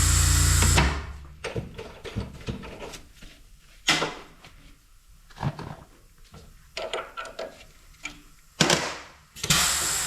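Machine used for trimming valve guides on a cylinder head running steadily, then shutting off about a second in. A string of metal clicks and clunks follows as the tooling and head are handled, with louder knocks near the middle and near the end, before the machine starts running again at the very end.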